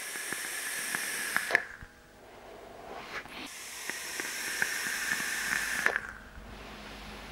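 Two long drags on a Taifun GT IVs rebuildable tank atomizer. Air hisses through its narrowed airflow with a faint whistle, and the coil crackles as it vaporises the liquid. The first draw ends about a second and a half in; the second builds and stops near six seconds.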